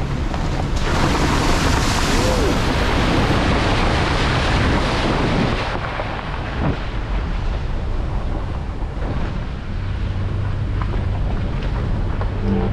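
Toyota Tacoma pickup fording a shallow creek: tyres splashing and churning through the water for about five seconds, over a steady engine hum. The splashing then gives way to the truck rolling on over the gravel road, with engine hum and tyre noise.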